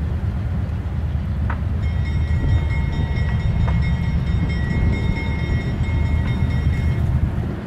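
A freight train running: a loud, steady low rumble, joined from about two seconds in by a high, steady squeal that stops about a second before the end.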